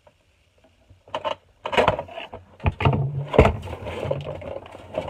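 Cardboard toy box and its plastic packaging being handled and pulled open: irregular crackling, rustling and scraping, starting about a second in.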